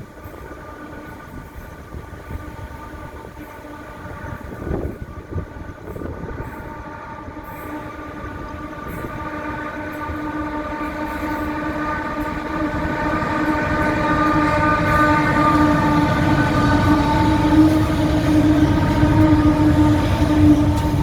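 Diesel train approaching, its engine's steady pitched drone growing louder through the second half.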